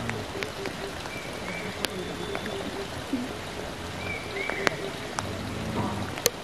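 Steady rain-like hiss with scattered sharp drip ticks. Over it, a short high two-part call repeats about every three seconds, together with a row of quick low pulses.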